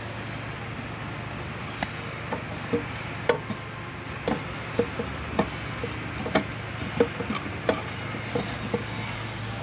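Oil dripping from the opened front axle housing of an Iseki Landhope TU175F tractor into a pan of drained oil. Small irregular plops start about two seconds in and come roughly twice a second, over a steady low hum.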